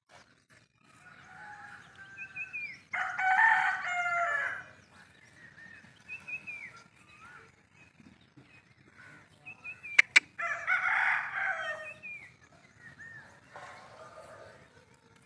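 A rooster crowing twice, each crow about a second and a half long, with small birds chirping in between. Two sharp clicks come just before the second crow.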